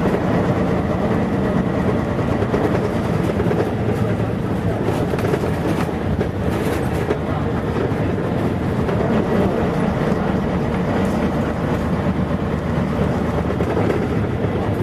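Running sound heard from inside a 1989 Mitsubishi P-MP218M bus with a Shin-Kureha Aerostar K body: its V8 diesel engine drones steadily under way, with road and body rumble.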